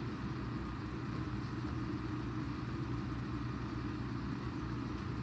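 Air conditioner running with a steady hum and low drone, loud enough to be called "a little too noisy".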